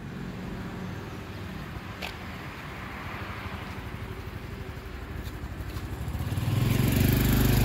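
Motor scooter engine running as it approaches, a steady hum that grows much louder over the last second or so.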